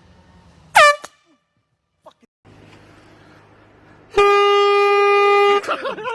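Handheld air horn blast: one loud, steady blare about a second and a half long, starting about four seconds in, cut into by a startled cry. About a second in there is a short, loud squeal that falls in pitch.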